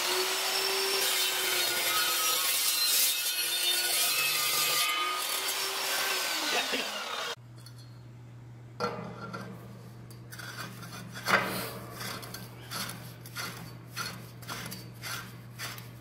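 Metal-cutting chop saw running and cutting through galvanized steel pipe. The motor's pitch sags as the blade bites and recovers, and the sound stops abruptly about seven seconds in. After that come light metallic clicks and scrapes as threaded pipe is turned into a galvanized elbow fitting.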